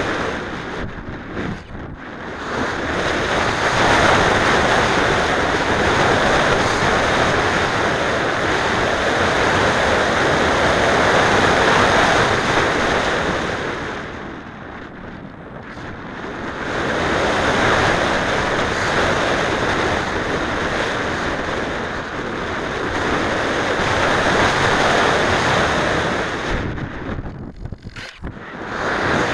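Rushing airflow over a Mijet slope-soaring glider, picked up as wind noise on its onboard camera's microphone, with no motor. The rush swells and fades, easing off briefly about a second in, for a couple of seconds around halfway, and again near the end.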